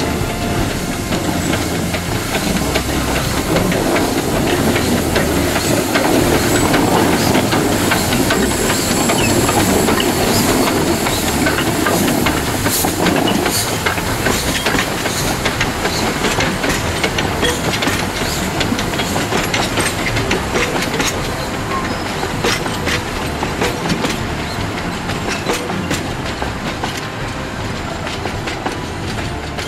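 A two-foot gauge Ng15 steam locomotive running with its train: a steady hiss of steam over the clickety-clack of wheels on rail joints. The clicks come thicker from about halfway through.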